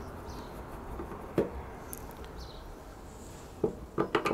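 A few sharp clicks of a screwdriver and small screws against the fuel filler cap assembly of a motorcycle's fuel tank as the assembly is unscrewed: one about a second and a half in, then a quick run of four near the end.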